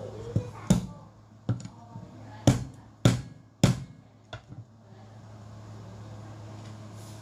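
Fresh ginger root being pounded to crush it: about eight sharp, irregular knocks over the first five seconds, then a steady low hum.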